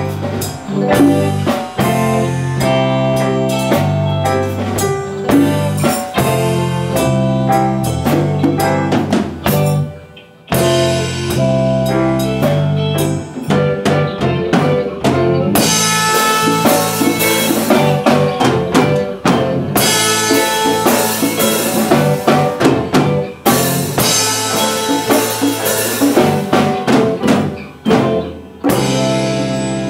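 A rock band playing: electric guitar, drum kit, congas and keyboard. The music drops out briefly about ten seconds in, then carries on before dying away near the end.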